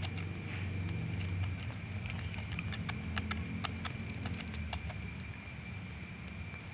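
Baby monkey suckling milk from a bottle teat: a run of small irregular sucking clicks and smacks, thickest in the middle, over a low steady rumble.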